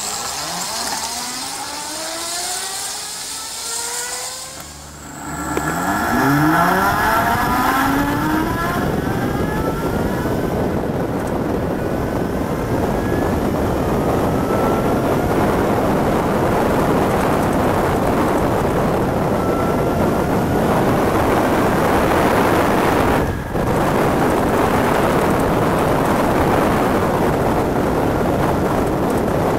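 Electric motorcycle's Etek axial-field DC motor whining as the bike pulls away, its pitch climbing several times as it accelerates. From about five seconds in, steady wind rush on the microphone as the bike rides, with the rising whine heard again under it for a few seconds and faintly later.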